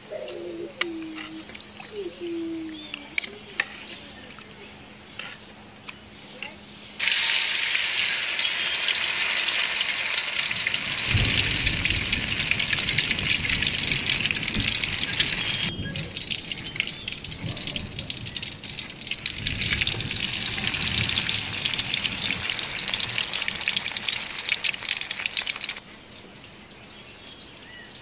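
Batter-coated shrimp deep-frying in a wok of hot oil: a loud, steady sizzle that starts abruptly about a quarter of the way in and cuts off near the end. Before it there is quieter outdoor sound with a few short chirps.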